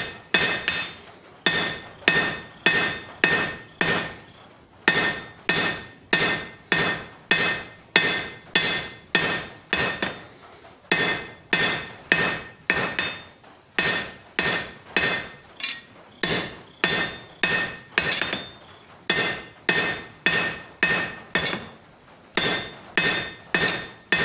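A blacksmith's hand hammer strikes a red-hot iron bar on the anvil in steady runs of about two blows a second, broken by a few short pauses. Each blow leaves a short metallic ring from the anvil.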